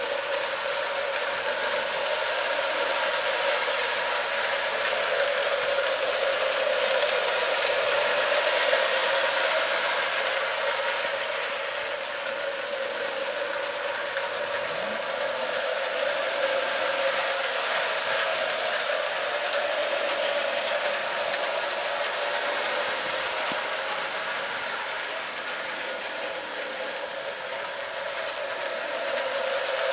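Marx 666 toy steam locomotive pulling its train around tinplate three-rail track: the electric motor and gears whirring with a rattling clatter of wheels on the rails, growing louder and softer as it circles the loop.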